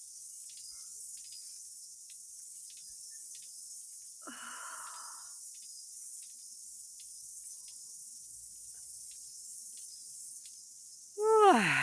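A woman yawning: a soft, breathy sigh-yawn about four seconds in, then near the end a louder voiced yawn that slides down in pitch.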